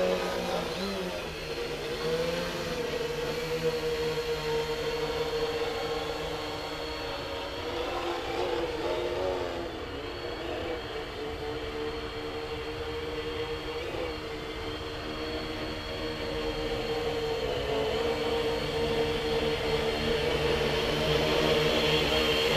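Electric motors and propellers of an R/C Lunar Module quadcopter in flight: a steady multi-pitched whine that drifts up and down with the throttle, growing louder over the last few seconds.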